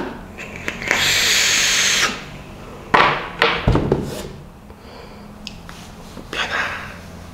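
A long draw on a large vape device: a steady hiss of air pulled through it for about a second. Then the vapor is blown out forcefully in a few loud breathy puffs, with a softer breath out near the end.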